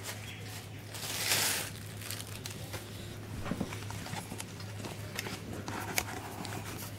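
Handling noise: a short rustle of a paper sheet about a second in, then a few light clicks and taps, over a steady low hum.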